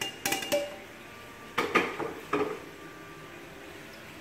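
Stainless steel pots and a spoon clinking and knocking against each other: a cluster of sharp clinks at the start and another in the middle, some with a short metallic ring.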